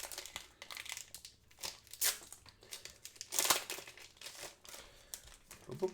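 Foil trading-card booster packs crinkling as they are handled and shuffled, in irregular rustles with a louder crinkle about two seconds in and another midway.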